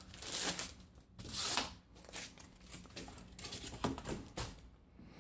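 Crinkling and rustling of something being handled, in a series of short crackly bursts, the loudest about half a second and a second and a half in, with quicker rustles after that.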